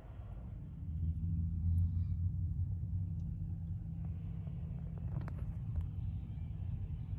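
Low, steady vehicle engine rumble with a hum, growing louder about a second in, with a few faint clicks in the middle.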